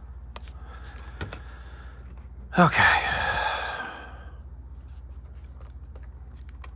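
A man lets out a long sighing "okay" with falling pitch, nearly three seconds in, over a steady low hum. A few faint clicks are scattered through it.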